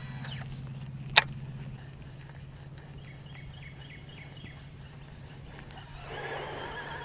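Baitcasting reel being wound, a low steady whirr, with one sharp click about a second in. Near the end a louder, rougher noise sets in, which may be a bass striking the frog lure at the boat.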